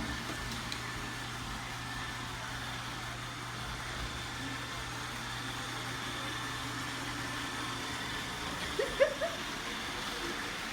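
Roomba 880 robot vacuum running steadily while it vacuums the floor, an even motor hum and brush whir. A short pitched vocal sound cuts in briefly about nine seconds in.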